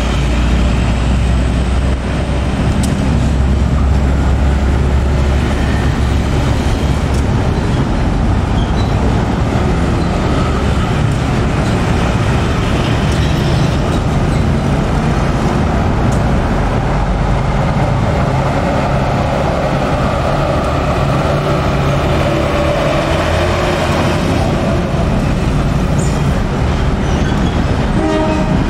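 Diesel locomotive engine running with a steady low rumble as the locomotive creeps forward at shunting speed, hauling a train of container flatcars.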